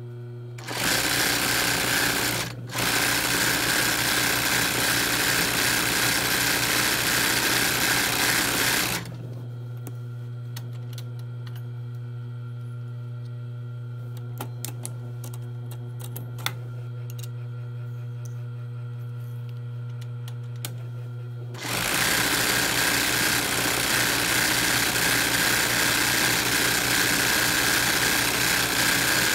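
ROYAL industrial sewing machine stitching fast during free-motion embroidery on hooped cotton. It stops for about thirteen seconds in the middle, leaving a steady low hum and a few light clicks, then runs again.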